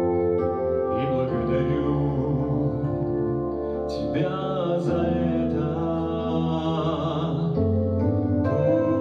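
Slow ballad: a man singing, with wavering held notes, over a keyboard accompaniment.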